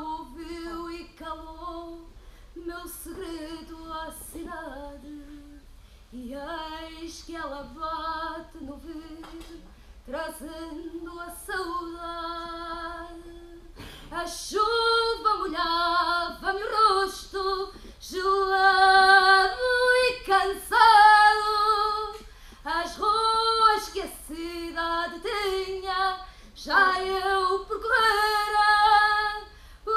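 A woman singing a slow melody alone and unaccompanied, with long held notes. She sings softly at first and noticeably louder from about halfway through.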